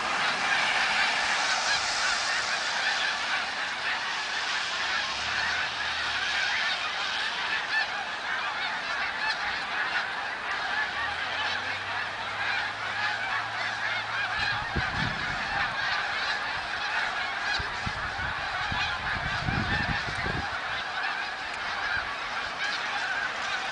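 A large flock of snow geese flying overhead, honking continuously as a dense, overlapping chorus of many birds calling at once.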